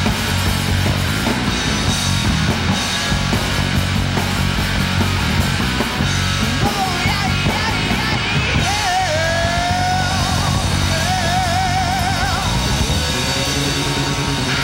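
Live rock band playing: electric guitar, bass guitar and drum kit. A male singer comes in about halfway through, singing wavering held notes.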